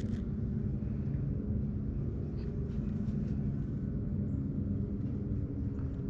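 A boat motor humming steadily at an even pitch, with a few faint ticks over it.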